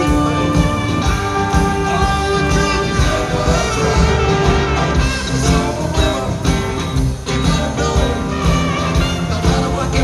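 Live rock band playing, with drum kit, electric bass, electric guitars and keyboards.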